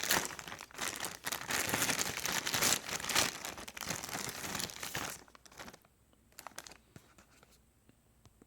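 Parcel packaging crinkling and tearing as it is opened, busy for about five seconds, then dropping to a few faint rustles and taps.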